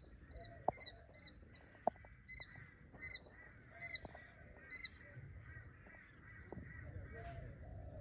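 Quail chicks peeping: short, high chirps repeating every half second or so, with a few lower, rounder calls mixed in. Two sharp clicks come in the first two seconds.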